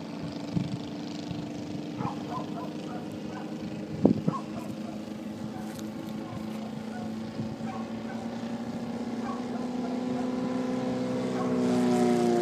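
Propeller engine of a light aircraft droning overhead, steady and growing louder over the last few seconds as it comes closer. A single sharp knock sounds about four seconds in.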